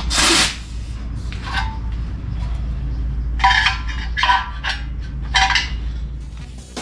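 Metal parts being handled: a loud scrape at the start, then four short metallic clinks, each with a brief ring. A steady low hum runs underneath.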